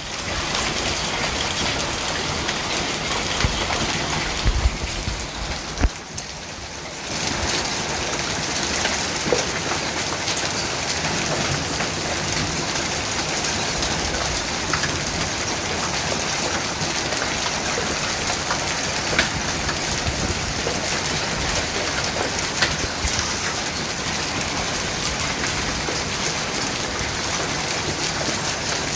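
Heavy rain and hail pelting down as a dense, steady hiss dotted with sharp hailstone impacts. The sound dips briefly about six seconds in, then comes back at full strength.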